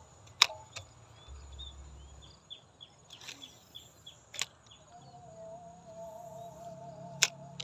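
Rural pond ambience: a steady high insect drone and a run of short bird chirps, broken by three sharp clicks from the spinning reel being handled during casting. A steady wavering hum comes in about five seconds in.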